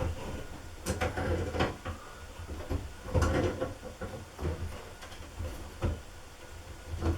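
Channel-lock pliers tightening a washing-machine hose fitting onto a water tap: a few irregular metal clicks and knocks with handling noise.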